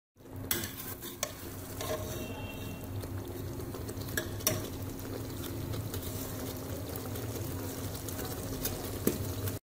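A metal ladle stirring taro root and chicken masala as it fries in ghee in a metal pot, scraping, with a few sharp knocks against the pot over a steady low sizzle. This is the bhuna stage: the taro is fried until its sliminess is gone and the ghee separates.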